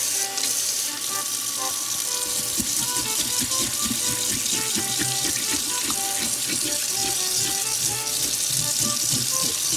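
Kitchen faucet running a steady stream of water onto a fish in a stainless steel sink. The water starts suddenly at the beginning and keeps up evenly throughout.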